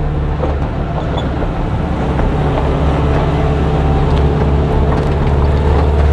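Volkswagen Vanagon camper van driving slowly up a dirt track and past, its engine running steadily under light load with its tyres rolling over dirt and stones, a little louder near the end as it draws alongside.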